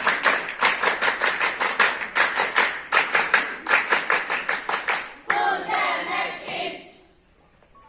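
A group of scouts clapping fast and evenly in unison, the rhythmic clapping of a scout salute cheer, with voices chanting over it. The clapping stops about five seconds in, the voices carry on a moment longer, then it falls quiet near the end.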